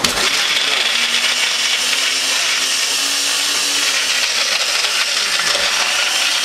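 Countertop blender switching on and running steadily, its blades chopping a steak into pulp.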